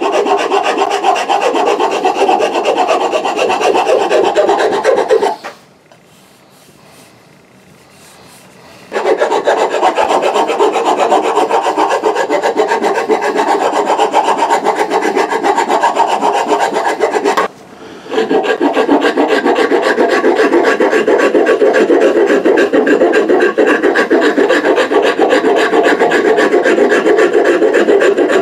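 Hand file rasping along a wooden axe handle in quick, continuous strokes, shaving wood off to shape the handle. The filing stops for a few seconds about five seconds in, and again very briefly past the middle.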